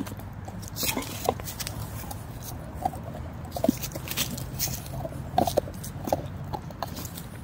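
Two pit bulls gnawing on a thick wooden stick: teeth scraping and cracking at the wood in irregular crunches and clicks.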